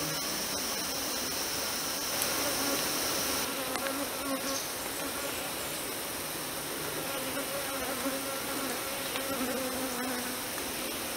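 Forest insect chorus: a steady high-pitched drone, with one high band cutting out about three seconds in. Over it a flying insect buzzes close by, its wavering hum coming and going several times.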